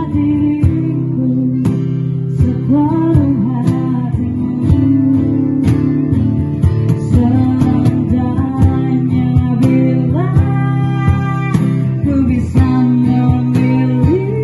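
A woman singing into a microphone, holding some long notes, accompanied by a strummed acoustic guitar.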